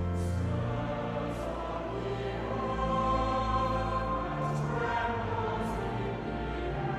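A choir singing a slow hymn in sustained chords over low bass notes, with a few soft hissing consonants heard in the words.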